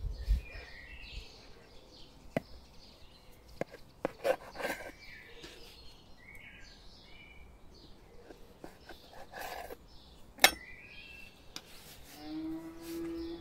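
Small birds chirping outdoors, with a few sharp knocks of a knife against a wooden board while dough is cut. Near the end there is a short, low-pitched call.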